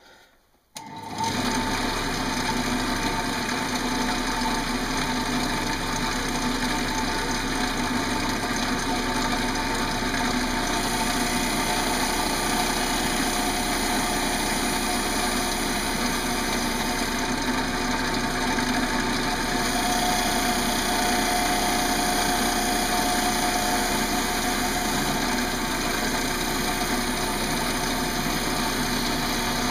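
Wood lathe running with a bowl gouge hollowing the inside of a green pear-wood bowl, peeling off long ribbons of shavings. The sound comes in abruptly about a second in and holds steady.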